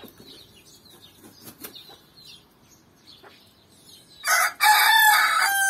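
Bantam rooster crowing once, about four seconds in: a short first note, then a long held note that drops in pitch at the end. Before the crow there are only faint scattered hen clucks.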